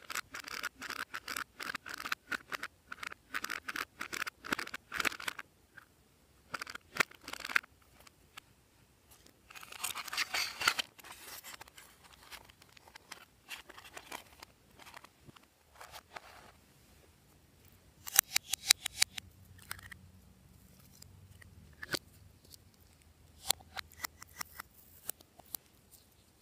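A plastic tool scraping glitter eyeshadow out of a makeup palette in quick repeated scratchy strokes, several a second. Later come a stretch of crinkly rustling and a few scattered sharp clicks as more items are handled.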